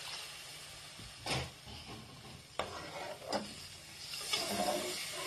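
Spiced sauce of oil and water sizzling and simmering in a pan, stirred with a metal ladle that knocks against the pan a few times.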